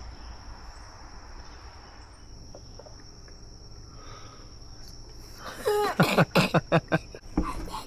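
Steady, high insect chorus, crickets or similar. About five and a half seconds in, a loud burst of a person's vocal sounds breaks in for a couple of seconds.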